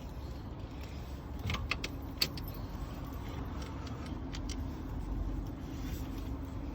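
A few light clicks and clinks of hand tools and parts being handled while a thermostat housing is fitted in a car's engine bay, over a steady low hum.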